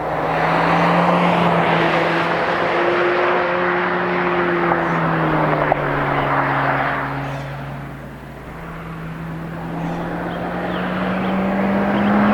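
2022 Honda Civic Si's L15B7 1.5-litre turbocharged four-cylinder engine and exhaust heard from outside as the car drives by. The engine note holds fairly level, then drops in pitch and fades a little after the middle, then rises in pitch and grows louder again toward the end as the car accelerates.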